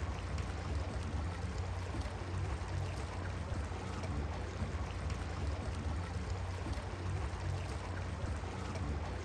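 Steady rushing water noise, even throughout, over a constant low hum.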